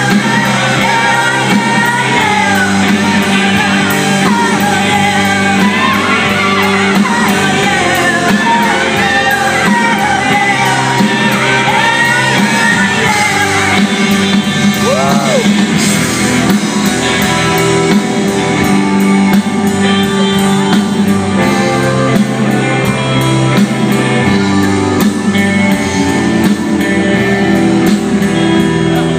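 Live punk rock band in a large hall: a woman sings and shouts over electric guitar and drums for about the first half, then the voice stops and the band plays on.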